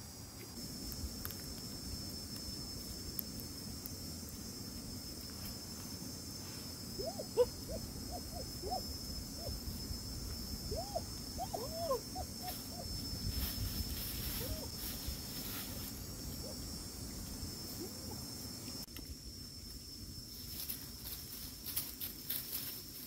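Steady high-pitched insect drone, with a run of short hooting bird calls about a third of the way in to about halfway. Rustling and crackling in dry leaves and brush comes in bursts, most near the end.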